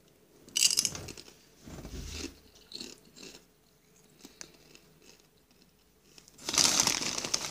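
Doritos tortilla chips being bitten and crunched while chewing, close to the microphone, with a sharp crunch about half a second in and smaller crackles after. A louder burst of noise comes near the end.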